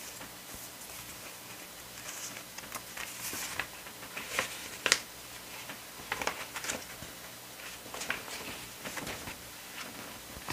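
Paper rustling and light taps from handling an album's printed booklets and cardboard box, with a sharp tap about five seconds in.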